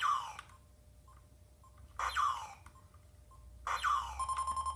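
A 1986 WOW Lazer Tag Starlight pistol fired three times, each shot a short electronic zap that falls steeply in pitch, about two seconds apart. After the last shot comes a steady electronic tone, and the vest sensor gives short faint beeps between the shots as it registers hits.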